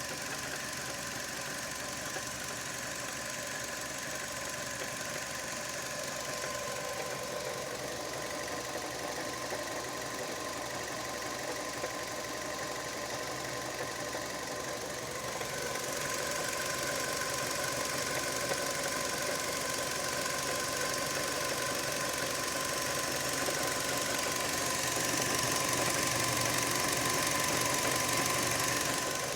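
Fiat Grande Punto 1.4 8-valve four-cylinder engine running with a weird knock-like sound that the owner cannot place. It gets louder about halfway through and again near the end.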